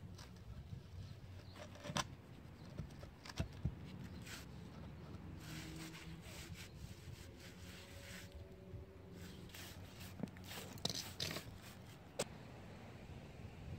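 A large concrete paver being shifted and set into a bed of sand, with gritty scrapes and a few sharp knocks of slab on slab. Short brushing strokes of a stiff broom on the pavers come near the end.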